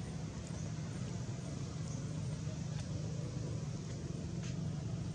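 A steady low rumble of motor traffic, with a few faint, short high chirps over it.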